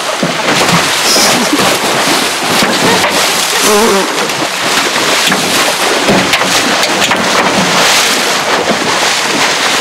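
Steady rushing noise of wind and sea on an open boat, loud and even throughout, with faint voices now and then underneath.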